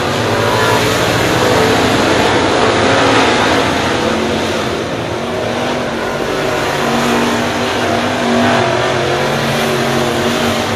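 A field of dirt late model race cars running at racing speed, their V8 engines a loud continuous drone of several overlapping engine notes that rise and fall as cars pass through the turn, easing slightly about halfway through.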